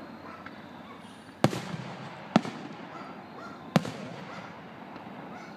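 Aerial firework shells bursting: three sharp bangs, the first about one and a half seconds in and the last near four seconds, each trailing off in an echo.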